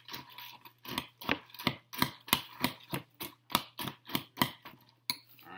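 A metal spoon stirring cereal and milk in a bowl, clinking against the bowl about three times a second; the clinking stops about five seconds in.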